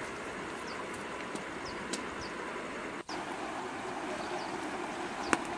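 Steady rushing outdoor background noise with short, faint bird chirps recurring high above it, and one sharp click near the end.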